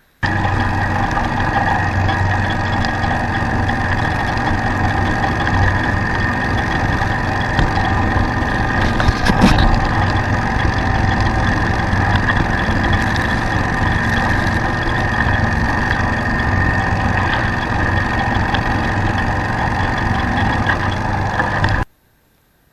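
A Craftsman YTS4500 lawn tractor's 26 hp engine running steadily while driving a 42-inch snow thrower attachment, with one sharp knock about nine and a half seconds in. The sound starts abruptly and cuts off abruptly just before the end.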